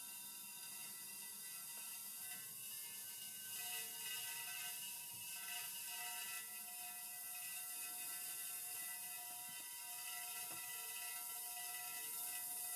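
Smirnoff Ice Lightning plasma lamp running, its high-voltage discharge giving a quiet, steady electrical hiss and buzz with several steady whining tones. The hiss swells a little for a few seconds while a hand is near the dome.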